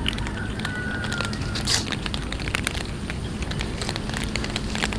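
Many cats crunching dry kibble together: a dense, irregular run of small crisp crunches, with one louder crunch a little under two seconds in.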